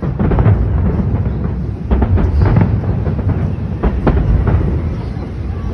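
Aerial fireworks bursting, sharp booms in clusters near the start, about two seconds in and about four seconds in, over a continuous low rumble of further explosions echoing.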